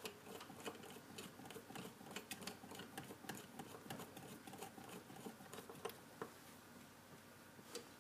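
Faint, irregular small clicks and taps of hands handling a 3D printer's extruder parts as they are fitted back onto the stepper motor, thinning out after about six seconds.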